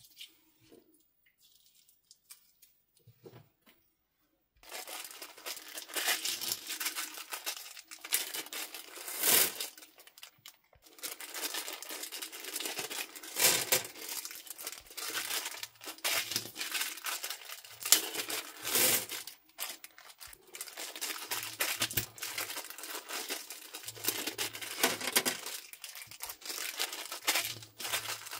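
Small plastic bags of beads crinkling and tearing as they are handled and opened, a near-constant rustle with frequent sharp, louder crackles. Only faint soft handling sounds come before it, for the first four or five seconds.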